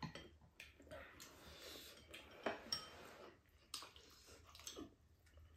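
Faint, scattered clicks and taps of a spoon and chopsticks against bowls and a frying pan during a meal, several separate light knocks.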